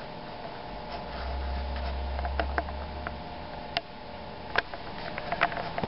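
Steady hum of running machinery, with a low rumble for about two seconds near the start and several sharp clicks scattered through it.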